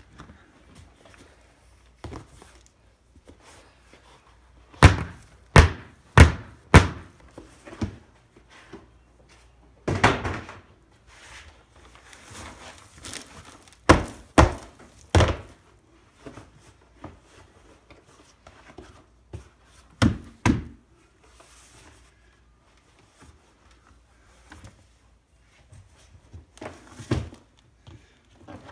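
Plastic worm breeding trays knocking and thunking against the rim of a worm bin as they are emptied and set down. The knocks come in groups: four quick ones about half a second apart, more around the middle, a pair about two-thirds in, and another near the end.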